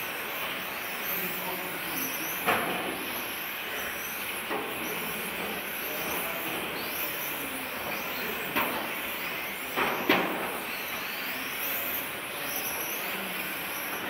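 1/10 scale electric touring cars with 17.5T brushless motors racing: a steady whir of motors and tyres, with high motor whines rising and falling as the cars accelerate and brake. Four sharp knocks cut through it, the loudest about ten seconds in.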